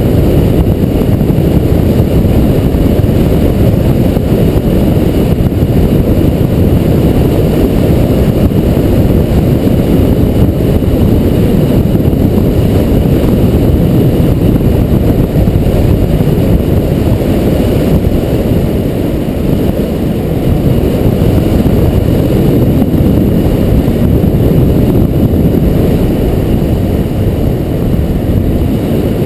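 Loud, steady wind rumble buffeting the microphone on a bicycle speeding downhill on a paved road.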